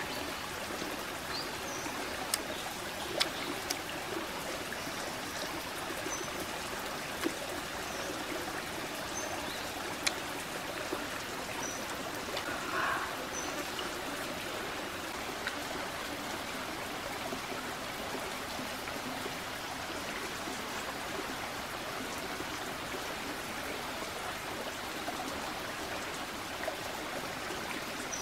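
Steady rush of a flowing stream over rocks, with a few sharp clicks in the first ten seconds and faint high chirps now and then.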